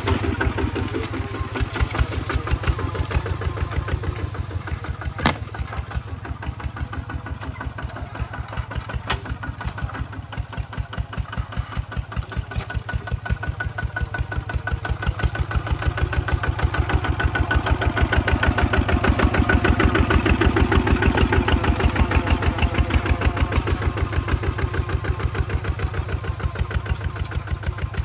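Kubota walking tractor's single-cylinder diesel engine running steadily under load as it pulls a disc plough through the soil, its exhaust beats coming in an even, rapid rhythm. The engine grows louder for a few seconds past the middle, then eases back.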